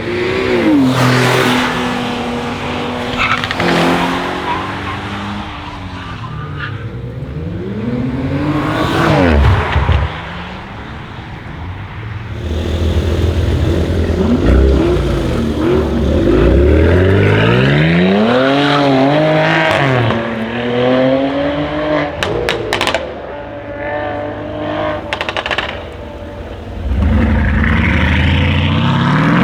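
Mercedes-AMG GLE 43's twin-turbo V6 through an aftermarket Armytrix exhaust, revving and accelerating several times with the engine note sweeping up and down in pitch. A run of sharp exhaust crackles and pops comes about two-thirds of the way through.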